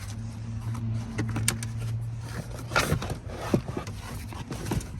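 Scattered light knocks, clicks and scrapes, the loudest about three seconds in, over a steady low hum.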